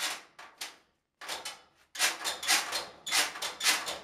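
A string of sharp knocks and bangs, several in quick clusters and louder in the second half, from parts of an old furnace being struck and worked loose during its removal.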